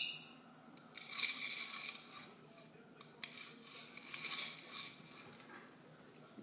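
Premier Kibble Nibble plastic treat ball rattling with kibble inside as a small dog noses and rolls it across a rug. The rattling comes in two bursts, about a second in and around four seconds in, with a few sharp clicks between them.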